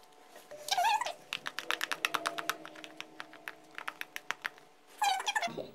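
The glue and shaving-foam slime mix being stirred in a bowl: quick clicks of the utensil against the bowl, about six to eight a second, with a short squelchy squeak just before them and another near the end.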